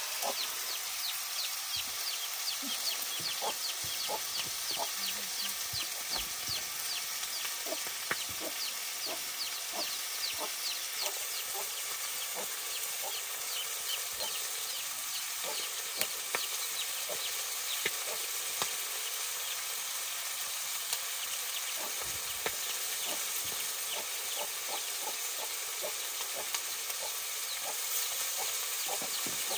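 Chicken pieces sizzling in a metal pan over an open wood fire: a steady hiss with scattered pops and crackles.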